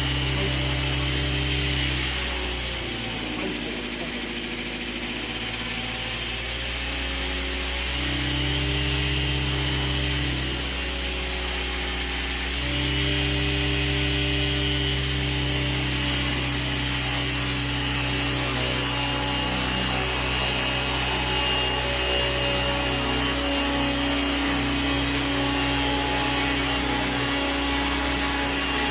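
Electric radio-controlled helicopter (Align T-Rex 600 ESP under an EC145 scale body) running, a steady high motor-and-gear whine over the rotor sound, its pitch wavering slowly as the head speed shifts.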